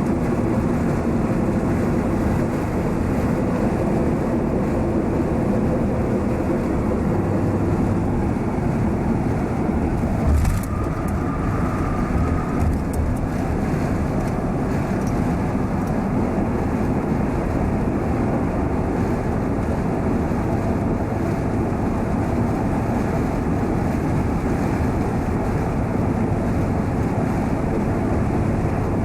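Steady road and engine noise of a moving car, heard from inside the cabin, with a short click about ten seconds in.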